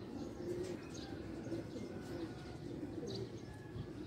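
Doves cooing repeatedly in low, soft notes, with a few short high bird chirps.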